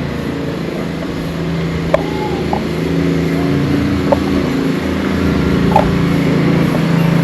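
A motor vehicle's engine running steadily and slowly growing louder, as if drawing closer, with a few short sharp clicks about two, four and six seconds in.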